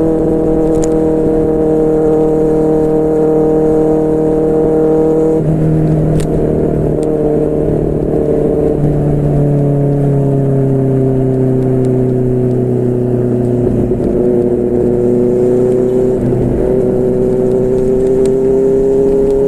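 QJMotor SRK600's inline-four engine through a Yoshimura R11 exhaust, running at steady cruising revs. The pitch shifts slightly about five seconds in, sinks slowly through the middle, then rises a little near the end.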